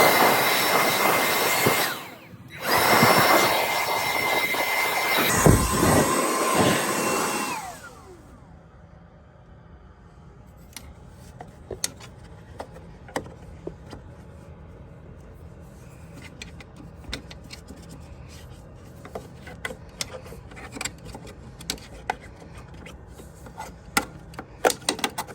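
Milwaukee M12 cordless blower blasting sawdust out of a table saw's dust port in two bursts, its motor whine winding down with a falling pitch about eight seconds in. After that come light clicks and scraping as debris is worked loose.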